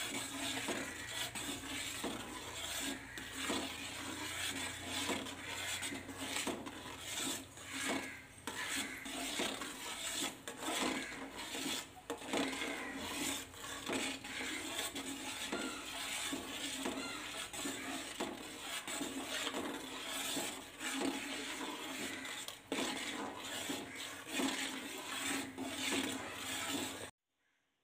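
A metal spoon stirring and scraping around a metal pot of jaggery syrup coming to the boil, with frequent scrapes and knocks against the pan over the hiss of the bubbling syrup. The sound cuts off suddenly near the end.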